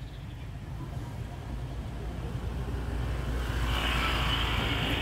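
A motor vehicle passing close by, its engine and road noise swelling over the second half and loudest about four seconds in.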